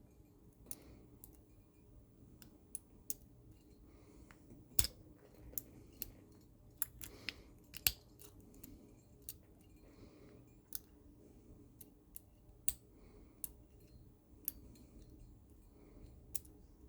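Lock pick working the pins of a Paclock padlock: irregular small metallic clicks and scrapes, some sharper and louder than others.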